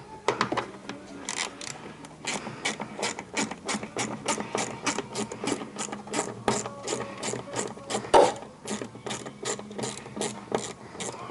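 Hand socket ratchet clicking in a steady rhythm, about three clicks a second, as a small bolt is turned out by hand rather than with an air tool. A single louder clunk comes about eight seconds in.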